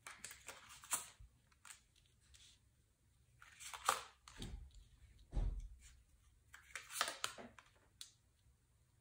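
Tarot cards being drawn from a deck and laid down on a table: a string of soft card slides, swishes and light taps, with a dull thump about five and a half seconds in.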